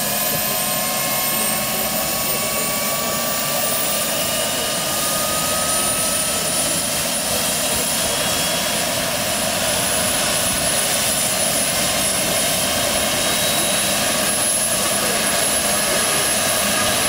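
Gas turbine of a large-scale RC AgustaWestland AW139 model helicopter running on the ground with its rotors turning. Its high whine slowly rises in pitch over the first several seconds as it spools up, then holds steady.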